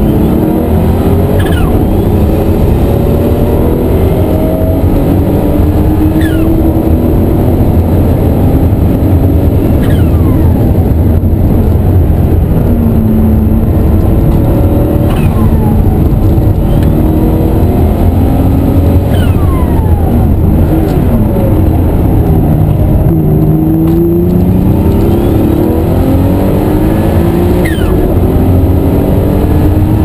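The 1988 RUF CTR Yellow Bird's twin-turbo flat-six running hard at racing speed, heard from inside the cockpit. The engine note climbs and drops back again and again as it goes through the gears, with a short falling whistle several times.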